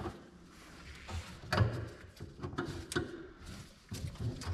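Scattered knocks, clicks and scrapes as a stuck Trans Am power antenna assembly is wiggled and pushed down to work it free from its mount in the rear quarter.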